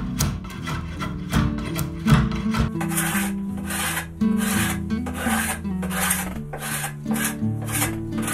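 Hand shaving strokes on a wooden bow stave, then from about three seconds in a wood rasp drawn back and forth across the tip of a bow limb, about two scraping strokes a second, over background guitar music.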